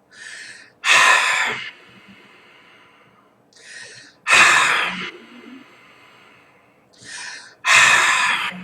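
A person doing ocean-sound hissing pranayama breathing: three cycles, each a short, softer breath followed by a louder, longer hissing breath, about three and a half seconds apart.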